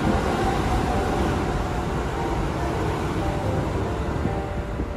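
Kintetsu Osaka Line train passing through the station at speed: a steady rumble of wheels on rail. It eases slightly toward the end as the last car goes by.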